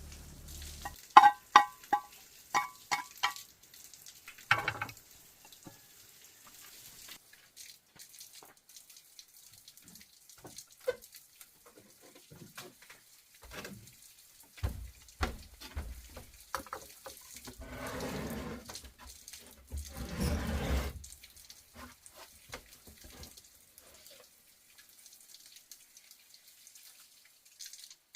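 Washing with water: several sharp clinks of hard dishes or utensils that ring briefly, then scattered knocks and two short gushes of running or poured water.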